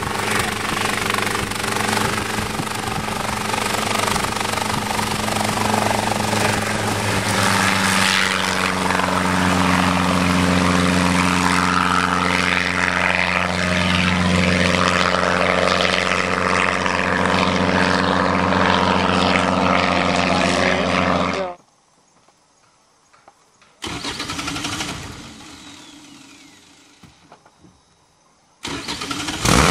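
Hughes 269A piston helicopter's engine and rotor running steadily. The pitch steps up a little about a quarter of the way in as it powers up to lift off. The sound cuts off suddenly after about two-thirds of the way, comes back briefly and fades, then returns loud near the end.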